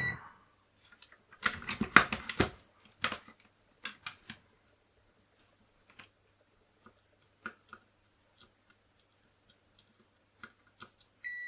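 Clicks and taps of handling, with a dense clatter between about one and a half and two and a half seconds in, then scattered single ticks. Just before the end a multimeter's continuity tester sounds a steady high beep, the sign that the two probed points are connected.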